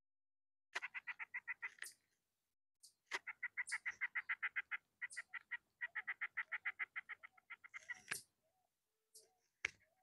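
Ants stridulating, picked up by a lavalier microphone held right at the soil: four bursts of fast, even chirping pulses, about nine a second. A sharp knock of the microphone being handled comes near the end.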